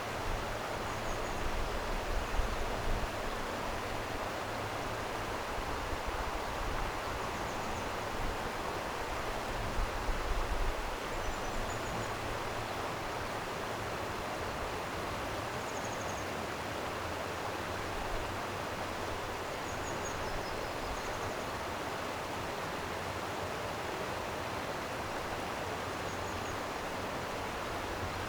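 Steady rushing of flowing stream water, even and unbroken, with a few faint short high chirps now and then.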